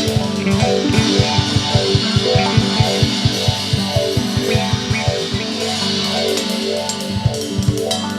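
Instrumental band music: electric or acoustic guitar and bass guitar over a drum kit keeping a steady beat, with cymbals on top.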